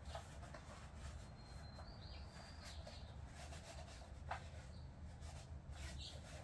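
Quiet workshop with a steady low hum, a few faint light clicks and rubbing from hands working on small parts, and a faint high chirp about two seconds in.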